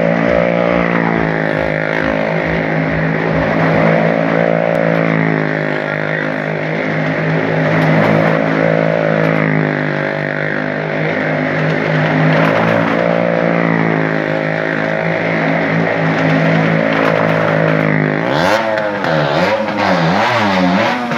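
A vehicle engine runs as it circles the vertical wooden wall of a well-of-death arena, holding a steady pitch. Near the end it revs up and down repeatedly.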